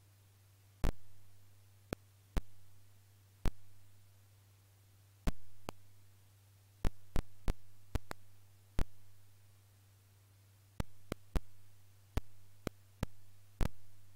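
Computer mouse clicks, about twenty sharp, irregular clicks as the mouse button is pressed repeatedly to draw, over a steady low hum.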